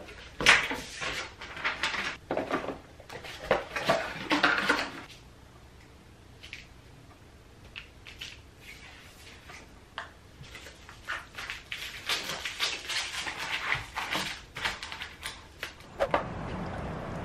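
Cardboard shipping boxes and product bottles being handled while packing orders: irregular rustles, taps and knocks as boxes are opened, folded and filled, quieter for a few seconds in the middle.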